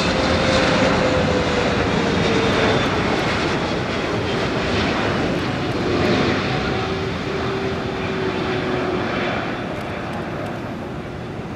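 Boeing 777-300ER's twin GE90-115B turbofan engines at approach power on final approach to landing: a steady jet rumble with a faint tone that slides slowly lower as the aircraft passes, fading gradually over the last few seconds.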